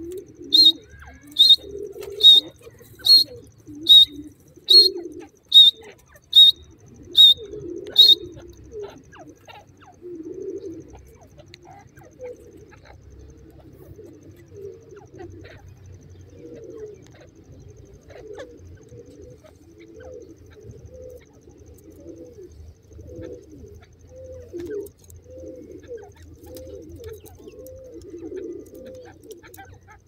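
Grey francolin calling: about ten short, sharp, high notes evenly spaced a little under a second apart, then stopping, over soft low cooing notes that go on throughout.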